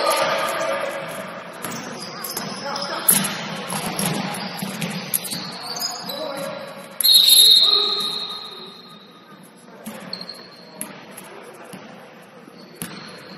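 Basketball game sounds in a gym: the ball bouncing on the court and players' voices. A short shrill whistle blast comes about seven seconds in.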